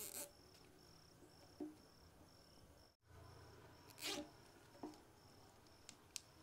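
Faint handling of plastic cable ties being threaded and pulled around a cardboard cold-pyro tube: a brief rustle at the start, a louder one about four seconds in, and a few small clicks. Underneath, a cricket chirps steadily, a high pulse about twice a second.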